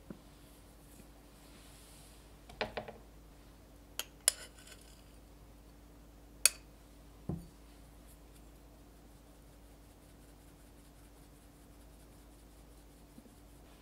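Several sharp clinks and a duller knock of utensils against a glass mixing bowl, then fast, faint, even tapping of a small mesh strainer as matcha powder is sifted through it.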